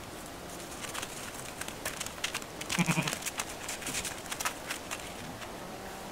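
A Finnish landrace sheep gives one short, low bleat about three seconds in. Scattered crisp clicks and crunches come before and after it.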